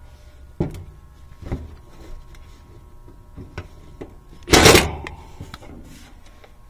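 Cordless impact driver giving one short burst about halfway through, driving a screw into the air-conditioner condenser's sheet-metal cabinet. Light knocks and clicks of the driver and bit being handled against the casing come before it.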